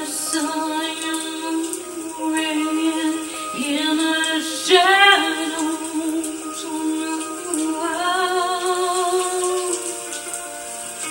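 A woman singing a song in a put-on funny voice over music, holding long notes with a wavering pitch and swooping up into some of them.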